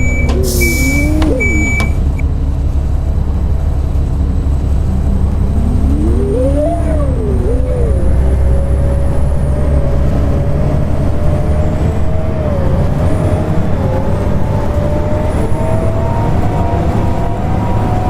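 Bus engine and drivetrain running with a constant low rumble, its pitch rising and falling as the bus speeds up and changes gear. Near the start comes a short hiss of air with three short beeps.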